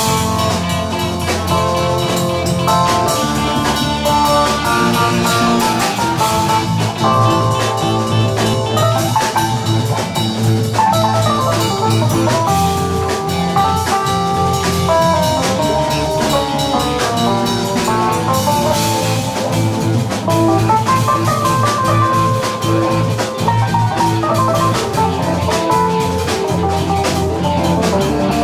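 Instrumental jazz-fusion jam with a busy drum kit, a low bass line changing notes every few seconds, and fast bright melodic lines on top.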